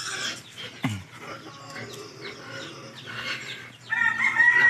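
Chickens clucking here and there, then a rooster crowing loudly about four seconds in, one long held call.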